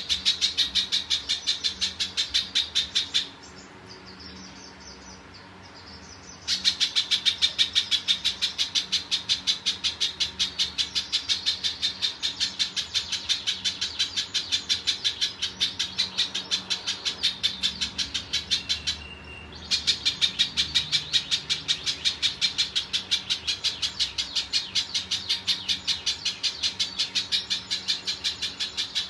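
A spiderhunter (pijantung) calling a long, fast series of sharp repeated notes, about five a second. The series stops for about three seconds shortly after the start, leaving only faint higher twitters, and pauses again briefly later.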